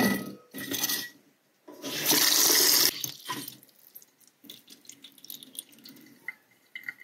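Cherries dropped into a stainless steel bowl in a kitchen sink, then a tap runs hard for about a second and shuts off suddenly. Quieter sloshing and drips follow as the cherries are swirled in the water.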